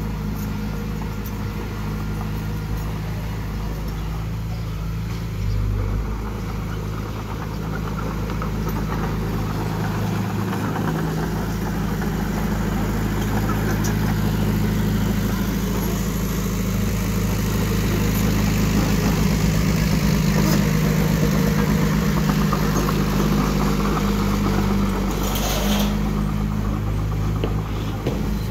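Diesel engine of heavy earthmoving equipment running steadily, a little louder past the middle, with a brief hiss near the end.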